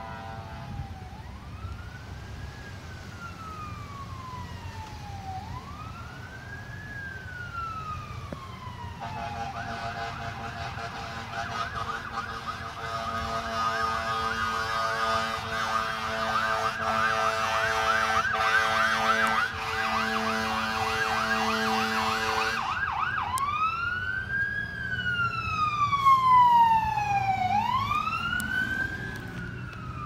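Ambulance electronic siren heard from inside a car. It starts as a slow wail rising and falling about every four seconds. About nine seconds in it switches to a rapid yelp, with long air-horn blasts sounding over it. After about 23 seconds it returns to the wail, loudest a few seconds later.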